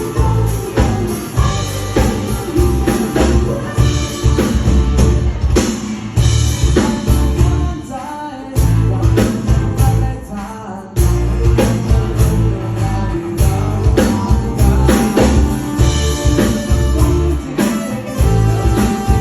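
A live full rock band, with drum kit, bass and electric guitar, playing a song, with a singing voice at times. The drums drop out briefly about halfway through before the band comes back in full.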